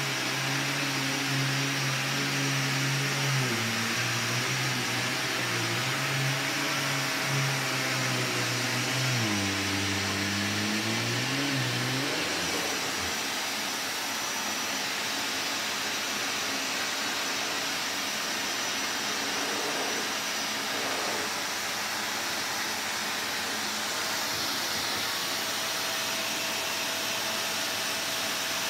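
Vax VCU-03C commercial upright vacuum cleaner running on carpet, a steady rushing hiss. A low hum in its sound shifts pitch a few times and fades out about twelve seconds in.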